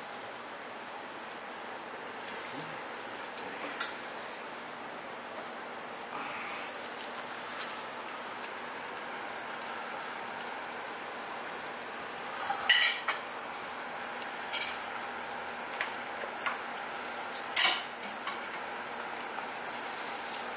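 Steady hiss with a few short metallic clicks and clinks as an outboard engine piston is handled. The sharpest clinks come about two-thirds of the way in and again near the end.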